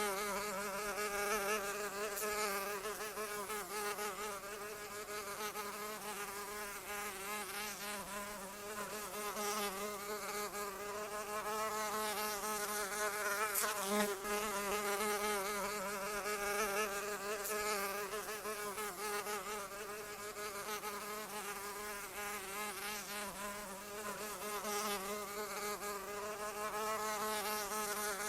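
Flying insect buzzing continuously: a steady wingbeat drone whose pitch wavers slightly up and down.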